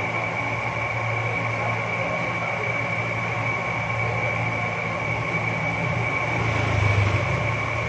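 Steady machine hum with a constant high-pitched whine over it; a deeper rumble swells briefly about seven seconds in.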